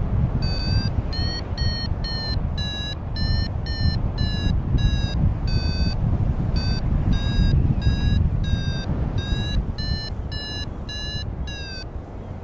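Free-flight glider variometer beeping in short high pitched beeps about twice a second, the tone it gives while the glider is climbing in lift. Under it runs a steady rush of wind on the microphone. The beeps pause briefly about halfway through and stop shortly before the end.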